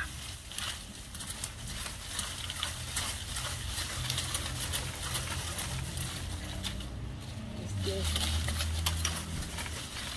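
Dry, dead leaves crackling and rustling as they are pulled and worked loose from a garden plant, a run of short crackles over a low rumble.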